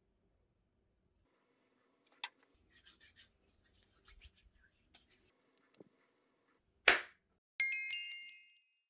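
Faint rubbing of hands working in hand cream, with a small click. Then a single sharp hit, followed by a bright ringing chime that fades away: an animated logo's sound effect.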